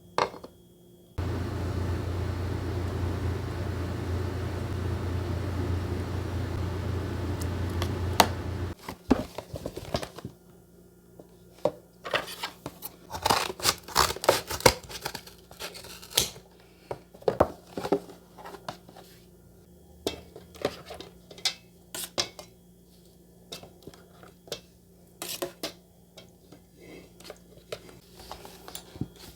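A small electric motor runs steadily for about seven seconds and then stops suddenly. It is followed by scattered clicks, light knocks and rustling of things being handled.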